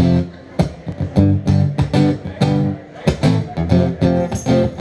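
Acoustic guitar strummed in a steady rhythm, ringing chords with sharp, regular strokes several times a second, with no voice over it.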